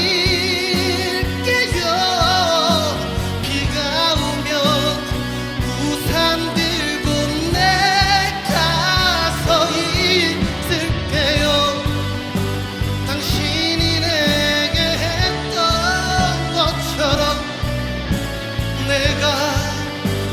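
Male singer singing a Korean ballad with vibrato over live band accompaniment with a steady bass and drum beat.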